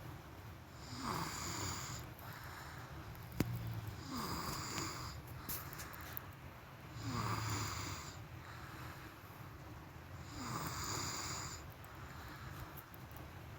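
A person snoring in slow, regular breaths, four snores about three seconds apart. There is a single sharp click about three and a half seconds in.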